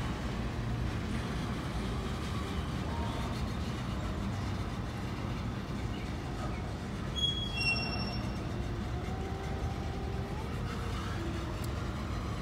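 CSX freight train's cars rolling slowly past a grade crossing: a steady low rumble of wheels on rail, with a few short high wheel squeals around the middle.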